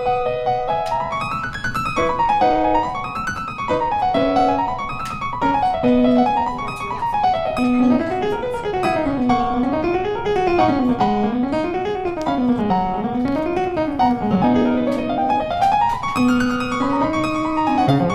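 Background music: a piano playing notes that run up and down in repeated waves over lower notes.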